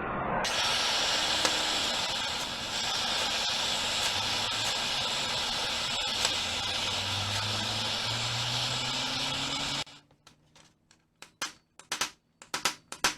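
Blowtorch flame hissing steadily while heating the bearing housing, shut off suddenly about ten seconds in. A quick run of sharp metal taps follows: a hammer on a punch, driving out the seized bearing.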